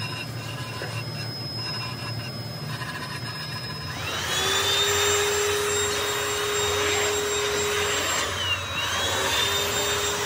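Handheld electric air blower starting up about four seconds in and running with a steady high whine, blowing loose sand off a sand-casting mould. Just after eight seconds it is let off and winds down briefly, then starts up again.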